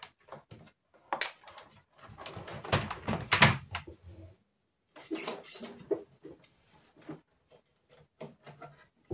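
Handling noise: a computer keyboard and its cable being moved about on a wooden desk, with irregular knocks, clicks and rustling, and a plug being fitted into the side of an iMac G3. The loudest rustling comes about two to four seconds in.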